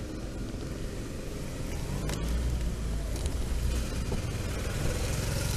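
Steady low rumble of riding noise from a slow-moving electric scooter, mostly wind and road rumble on the microphone.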